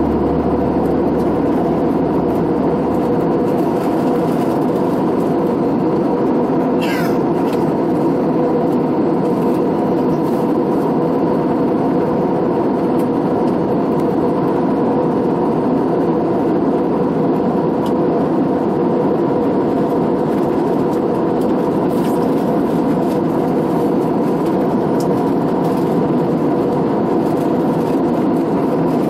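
Steady drone of an Airbus A320-family airliner's cabin in flight, heard from a window seat: jet engine and airflow noise with a steady hum. A short falling squeak sounds about seven seconds in.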